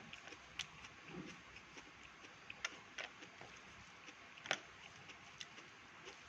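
Quiet eating sounds of someone chewing a meal of rice, egg and noodles: soft mouth noises with a few sharp clicks, the loudest about four and a half seconds in.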